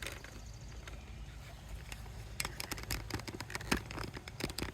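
Scattered light clicks, taps and rustles of a camera being handled and set in place, denser in the second half, over a faint steady low hum.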